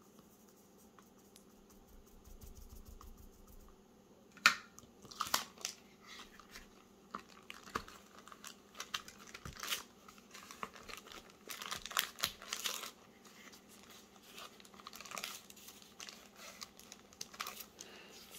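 A thin clear plastic sheet crinkling and crackling irregularly as it is pressed onto a Bible page and peeled off, during a watercolour-transfer ('smushing') step. The crinkling starts about four seconds in, after a quiet start.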